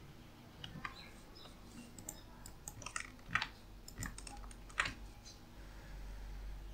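Faint computer keyboard typing: short runs of keystrokes with gaps between them.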